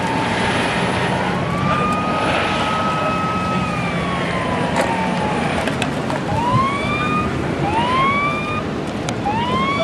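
Emergency vehicle siren sounding over road noise. It makes one slow wail that rises and falls, then switches about six seconds in to a string of short rising whoops, about one a second.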